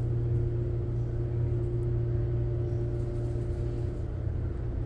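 Elevator car running: a steady low hum with a thin whine over it that fades about four seconds in.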